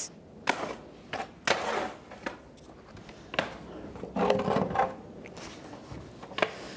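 Raw sheep's fleece being handled on a wooden table: irregular rustling and scraping, with a few light knocks and clatters.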